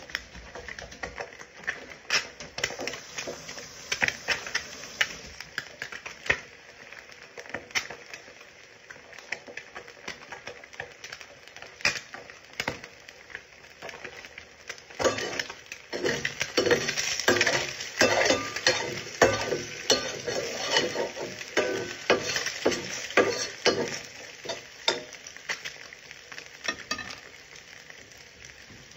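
Eggs frying and sizzling in a stainless steel pan, with scattered clicks at first. From about halfway through, a utensil scrapes and stirs rapidly against the pan for several seconds as the eggs are broken up and scrambled, then the stirring slows.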